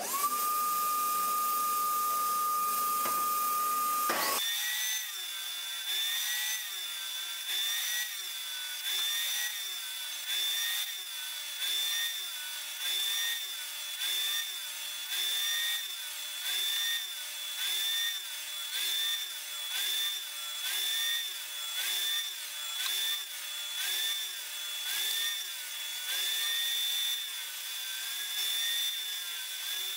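Stanley STST1825 benchtop table saw running and ripping 9 mm MDF into strips. It starts with a steady high whine for about four seconds, then the sound changes and rises and falls in pitch and loudness about once a second.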